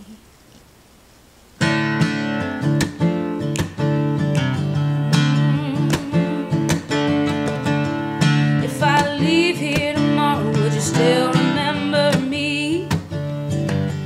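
An acoustic guitar comes in about a second and a half in, after a brief hush, playing a sparse, stripped-down picked and strummed accompaniment in a bluegrass-tinged style. A woman's voice sings with vibrato over it in the second half.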